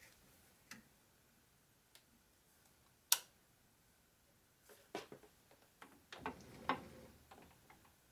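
Scattered light metal clicks and knocks from a metal lathe being handled with the spindle stopped, as the chuck and carriage are moved by hand while indicating. One sharp click comes about three seconds in, and a run of small knocks follows near the end.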